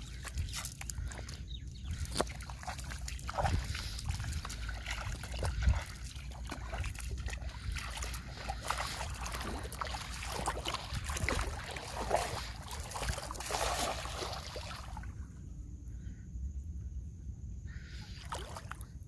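River water sloshing, splashing and trickling in irregular bursts as a net is worked through the shallows. Near the end it dies down for a few seconds to a low rumble.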